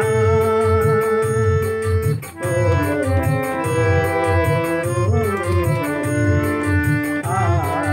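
Song accompaniment on an electronic keyboard with an organ sound, holding long melody notes over a steady low beat.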